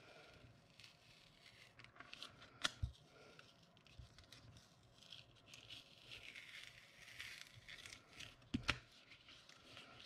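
Faint peeling and rustling of a self-adhesive paper mask being pulled slowly off painted card, with a couple of light clicks. The mask's adhesive is a bit too strong and tugs at the paper as it lifts.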